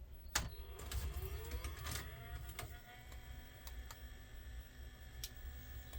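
Akai VS-5EK VHS video recorder going into playback: a click, then the tape mechanism runs and the freshly fitted video head drum spins up with a rising whine that settles into a steady tone. A few more clicks follow as the mechanism engages.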